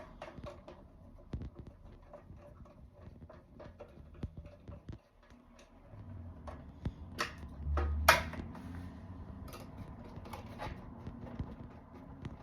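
Light clicks and knocks of a DVR's metal cover and its small screws being handled and fitted, with a few sharper knocks past the middle.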